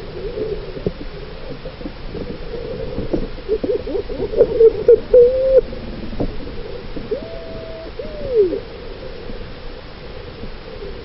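Underwater recording: a steady hiss with scattered clicks, broken in the middle by short squeaky hoots and then a held tone and a tone that falls in pitch.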